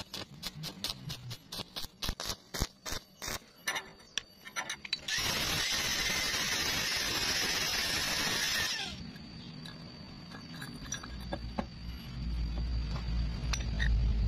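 Electric arc welding on a steel pump part, crackling in many short spurts. About five seconds in, an angle grinder grinds the weld for about four seconds with a steady hissing grind, then stops; a low rumble rises near the end.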